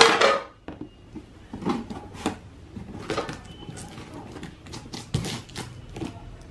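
Cardboard packaging being handled: one loud scrape and rustle at the start, then several softer rustles and knocks as the box and its inserts are moved and set down.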